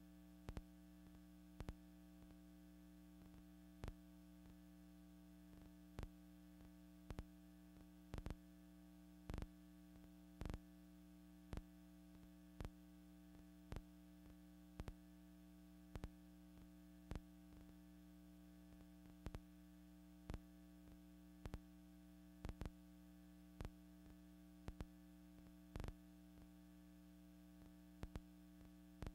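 Near silence: a faint steady hum with scattered sharp clicks, roughly one a second at irregular spacing, the background noise of a silent archival film transfer.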